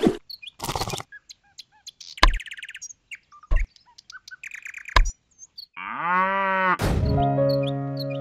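Birds chirping over near quiet, with a few sharp knocks, then a long low cow moo about six seconds in. Background music comes back in about a second after the moo.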